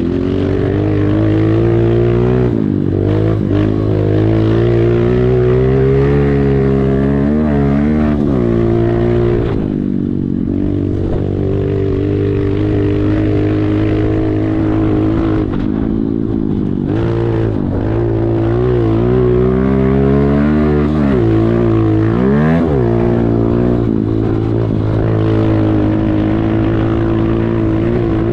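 Pit bike engine running hard, its pitch falling sharply and climbing back several times as it is revved up and down.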